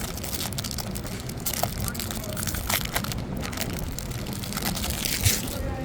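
Foil wrapper of a baseball card pack crinkling as it is torn open and handled, over wind buffeting the microphone.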